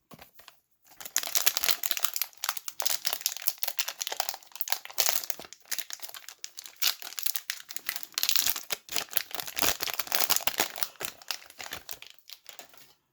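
Plastic wrapper of a baseball-card fat pack being torn open and crinkled by hand, a steady run of sharp crackles lasting about eleven seconds.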